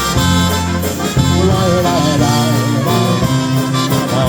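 Live polka band playing an instrumental passage right after the last sung line of a song, with a pulsing bass beat under a wavering melody line.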